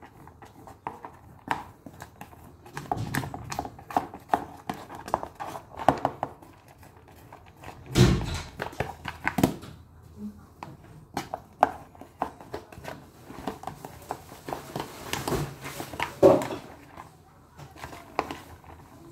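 Irregular clicks, taps and knocks of containers and utensils being handled on a countertop, with two louder thumps, one a little before halfway and one near the end.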